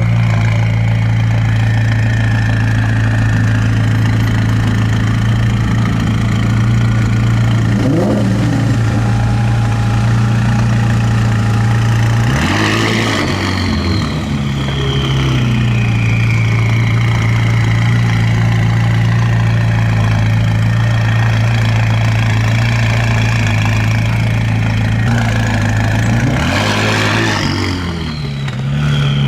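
McLaren 570S twin-turbo V8 idling and revved three times, once lightly and twice harder. After each hard rev a high turbo whistle slowly falls in pitch over several seconds.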